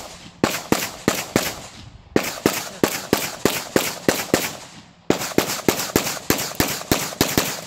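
Open-class competition pistol fired in rapid strings: three fast runs of shots, about four or five a second, with brief pauses between strings about two and five seconds in.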